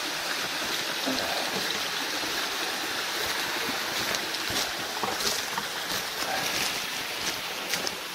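Steady rush of flowing river water, with footsteps on stones and undergrowth clicking in from about four seconds in.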